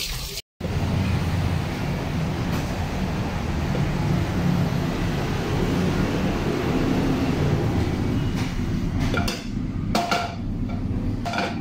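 A steady low rumble, then a few short clinks and knocks of cookware being handled on the stove near the end.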